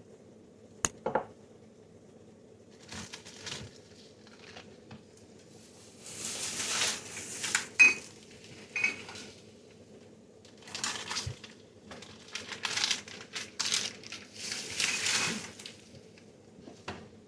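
Glass jars and bottles being handled and set down while a refrigerator is cleared out: clinks, knocks and rustling come in several bursts, the sharpest clink about eight seconds in. A low steady refrigerator hum runs underneath.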